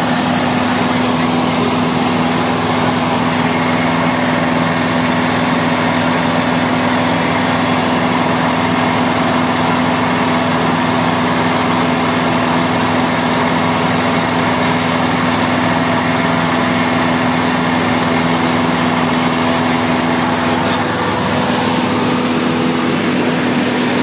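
Cessna 150's four-cylinder Continental O-200 piston engine running steadily at power, heard as a loud, even drone inside the small aircraft's cabin.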